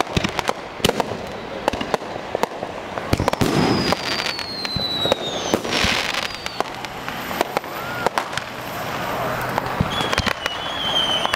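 Fireworks going off: a steady stream of sharp firecracker bangs, with a falling whistle about four seconds in, a rocket going up with a hiss about six seconds in, and another wavering whistle near the end.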